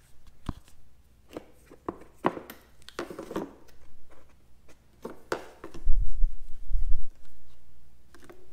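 Hands handling a motorcycle's plastic electrical parts and wiring: scattered clicks, taps and rustles of plastic. A heavy low thudding rumble about six to seven seconds in is the loudest sound.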